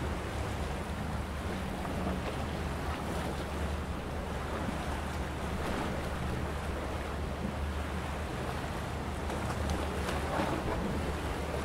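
Gentle sea waves washing against a rocky shore, with a steady low rumble underneath. The wash swells a little about six seconds in and again near the end.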